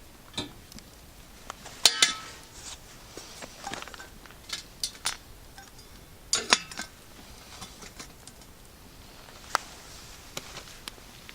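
Camp cookware and utensils clinking and clattering in irregular knocks, with the loudest clatters about two seconds in and again past the middle, and a single bright clink near the end.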